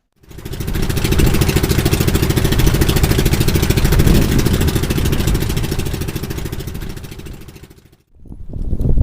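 A small engine running hard close by, with a fast, even pulsing. It swells about halfway through, then fades and stops abruptly near the end.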